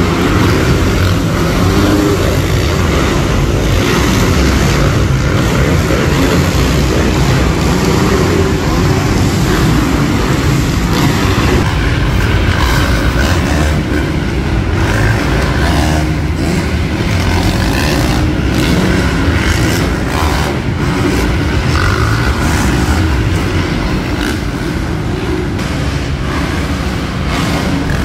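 Several supercross dirt bikes running around the track together, their engines heard inside a large indoor arena.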